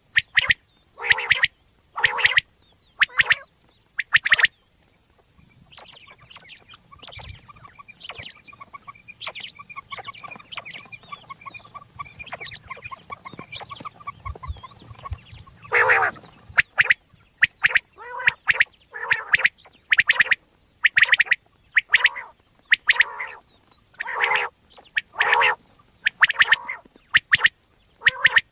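Common quail calling: loud, harsh calls repeated about once a second, as played to lure quail for hunting. About a fifth of the way in the calls stop for a softer stretch of faint chattering over a low rumble, then the loud calls resume a little past halfway.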